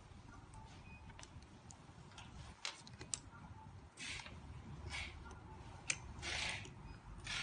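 Pencils being handled and laid down on a paper notebook: light clicks and taps of the pencils, with short rustles of hands brushing the paper, the rustles coming several times in the second half.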